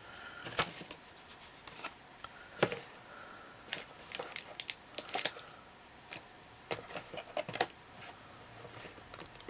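Irregular light clicks and taps of small craft items being handled and moved about on a table, some coming in quick little clusters.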